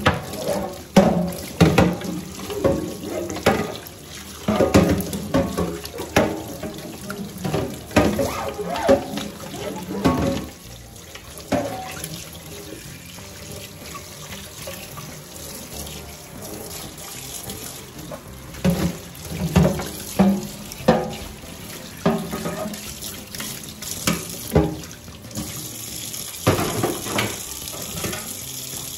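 Kitchen tap running steadily into a stainless steel sink while a black plastic tray is scrubbed with a brush under the stream, with irregular knocks and scrapes of the plastic against the sink. They come thickly for the first ten seconds or so, ease off, and pick up again in the second half.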